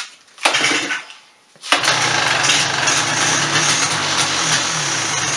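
1996 Polaris Sportsman 400's two-stroke engine being pull-started with the recoil starter: a first pull about half a second in turns it over briefly without catching. On the next pull, a little under two seconds in, it fires and keeps running.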